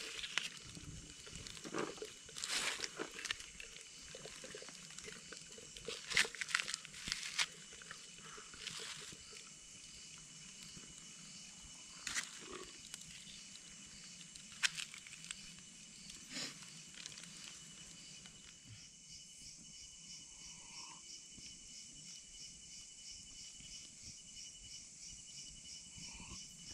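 Night insects: a steady high-pitched buzz, joined about two-thirds of the way in by a fast, even pulsing chirp, with scattered rustles and crunches.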